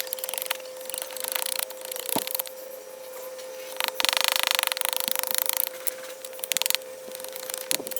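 Hand carving tools cutting and scraping green oak in short, irregular strokes, with a dense run of rapid scraping strokes about four seconds in. A faint steady tone sounds underneath.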